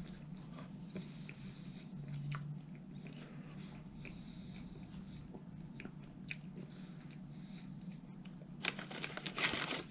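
A person chewing crunchy fast food close to the microphone, with scattered small mouth clicks over a steady low hum, and a louder crackling burst near the end.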